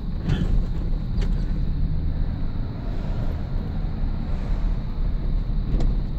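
Cabin noise of a GMC pickup truck on the move: a steady low engine and road rumble. A light click comes about a second in and another near the end.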